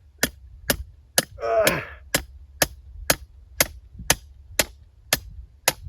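A hammer striking the top of a small fence post, about eleven even blows at roughly two a second, driving it into the ground through a soft spot, with a short effort grunt between blows about a second and a half in.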